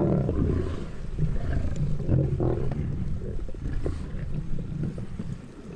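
Lions growling over a zebra carcass as they feed, in rough low bursts, the strongest at the start and again about two seconds in, over a steady low hum.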